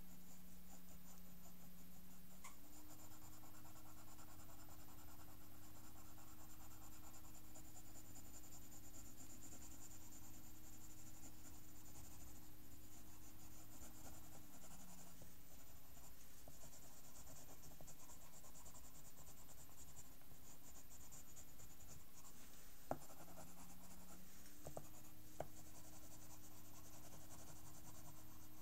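Pencil scratching on paper in quick, uneven shading strokes, with two brief clicks near the end.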